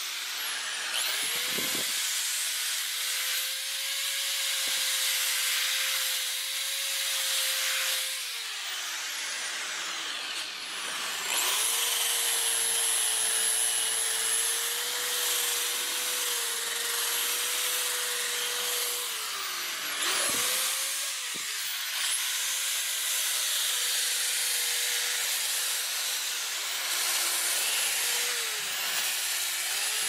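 Electric drill spinning a sanding disc against a wooden guitar body: a steady motor whine over the hiss of the abrasive. The drill winds down and spins back up several times, with a longer stop about a third of the way in.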